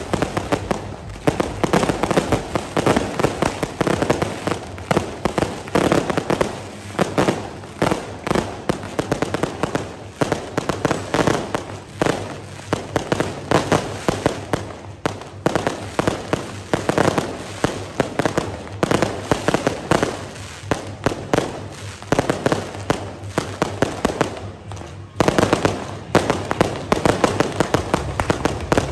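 Firecrackers and aerial fireworks going off in a dense, unbroken barrage of sharp bangs and crackles, many a second. There is a brief lull near the end, then a louder flurry.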